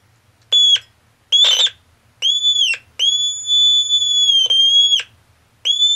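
High-pitched electronic tone from a rain-detector circuit built on a Science Fair 150-in-One electronic project kit. It sounds whenever the wire probes dipped into the bowl of water close the circuit, giving several beeps of uneven length with gaps between them. The longest beep lasts about a second and a half, and the pitch dips slightly as each beep ends.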